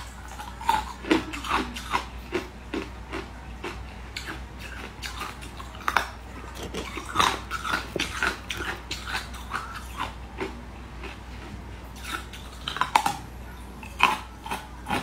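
Close-up biting and chewing of hard frozen sweet ice: a quick, irregular run of sharp crunches and cracks as the pieces break between the teeth.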